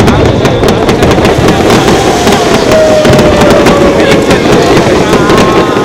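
Fireworks display: aerial shells bursting in rapid succession, a loud continuous barrage of bangs and crackles. A long tone falls slightly in pitch from about two seconds in.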